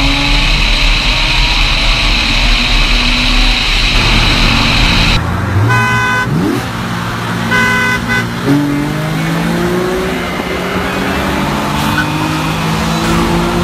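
Car engines at full throttle in a street race, with a strong high whine over road roar, cutting off abruptly about five seconds in. Then a tuned VW GTI with an aftermarket exhaust pulls through its gears, heard from inside the car, its engine note rising in steps, with two short car-horn blasts just before.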